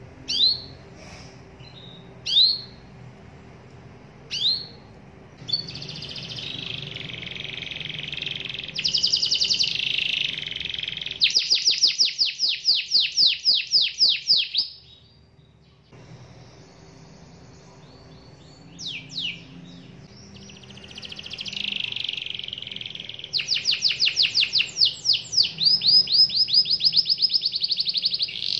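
Domestic canary singing: a few separate chirps, then long phrases of buzzy rolling trills and fast runs of repeated notes, a pause of a few seconds in the middle, then another long run of song.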